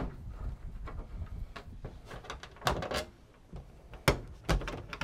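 Irregular knocks, clicks and rattles of an upholstered aluminium interior side panel being handled and pulled loose from a Cessna 172's cabin wall. The loudest knocks come about three and four seconds in.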